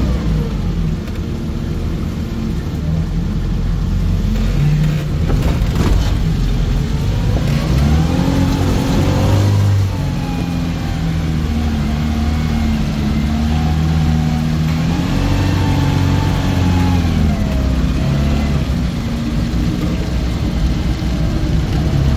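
Off-road 4x4 engine revving under load during a recovery, a stuck vehicle being towed free by another, its pitch rising and falling several times. A couple of sharp knocks about five to six seconds in.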